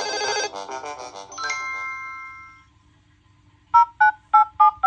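Samsung phone ringtones: a bright melodic chime phrase ends on a held chord that fades out about two and a half seconds in. After a short pause, a different tone starts near the end: a fast run of short two-note beeps, about four a second.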